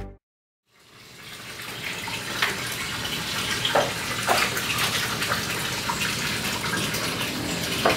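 Steady hissing noise that fades up after a short silence, with a few faint clicks.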